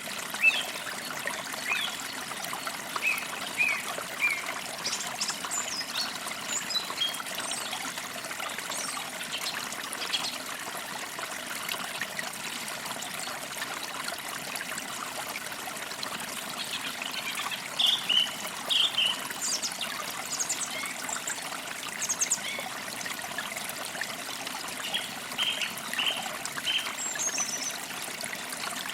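A creek trickling and babbling steadily over stones, with small birds chirping in short, scattered calls throughout.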